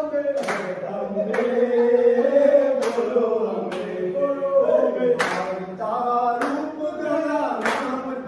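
Men's voices singing a garba, a Gujarati devotional song for the mother goddess, together, with sharp hand claps landing about once a second.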